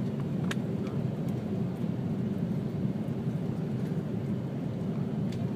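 Steady low rumble of an Airbus A330-200's engines and rushing airflow, heard inside the passenger cabin on approach with the flaps and landing gear extended.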